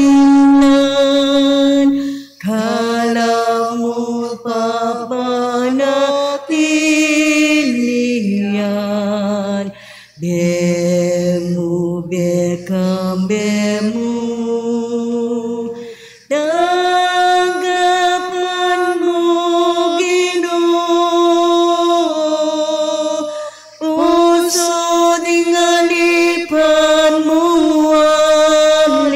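A slow offertory hymn sung in long held notes, in phrases a few seconds long with brief breaks between them.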